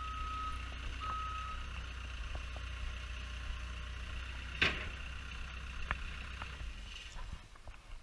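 Caterpillar compact track loader's diesel engine running as the machine backs up, its reverse alarm beeping twice near the start. A sharp clank comes about halfway through, and the engine sound fades out near the end.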